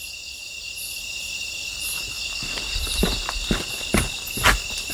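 Steady high trilling of a night chorus of crickets and other insects. About halfway in, footsteps and rustling through tall weeds break in as a handful of short crunches, the loudest near the end.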